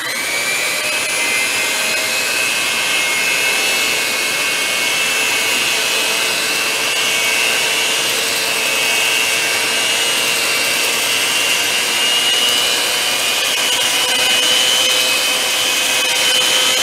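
Electric hand mixer switched on and running steadily, its wire whisk beaters mixing batter in a glass bowl; the motor's whine creeps slightly higher in pitch as it runs.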